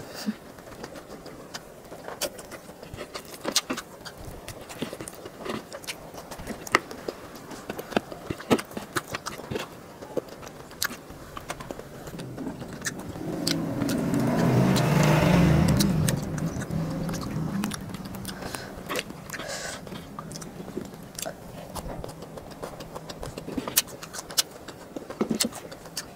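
Close-miked eating sounds: frequent small wet clicks and smacks of chewing, and fingers picking at fish and vegetables. Midway a low rumble swells and fades over about five seconds.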